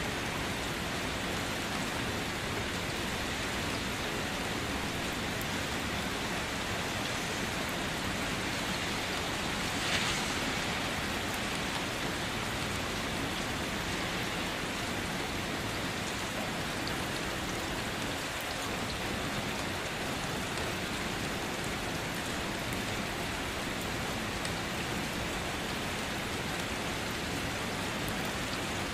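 Steady heavy rain falling and pattering on hard surfaces, an even hiss throughout. About ten seconds in there is a brief louder swish.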